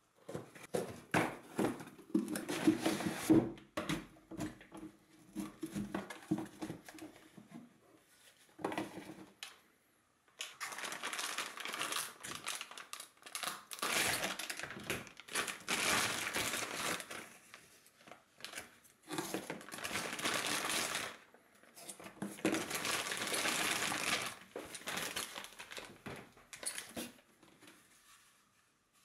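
Packaging being handled during an unboxing. For the first several seconds a cardboard box is opened and shifted, with knocks and scrapes. After that, plastic bags crinkle in long stretches several seconds each, with short pauses between.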